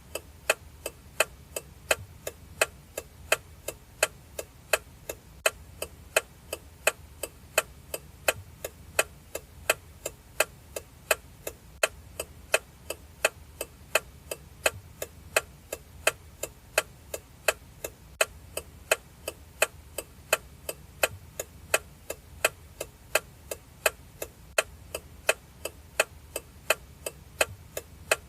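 Car turn signal indicator ticking steadily: even, alternating louder and softer clicks, about three every two seconds.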